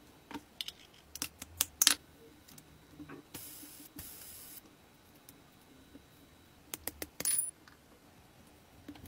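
Tiny metal parts of a miniature V8 engine model clinking and clicking against each other and against tweezers: a run of sharp light clicks, the loudest about two seconds in, a brief hiss around the middle, and a quick cluster of clicks near the end.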